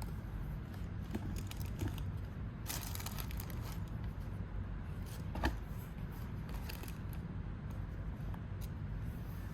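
Handling of a shoe box and its wrapping: intermittent rustling and crinkling with small clicks, and a single soft knock about five and a half seconds in, over a steady low hum.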